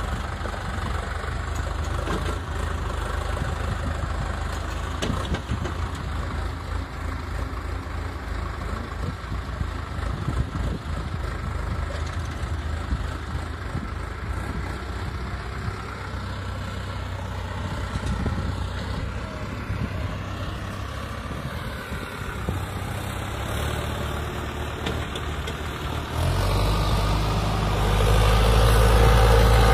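Sonalika DI 750 tractor's diesel engine running steadily as it pulls a trolley loaded with soil through sand. Near the end it grows clearly louder as the tractor is heard close up.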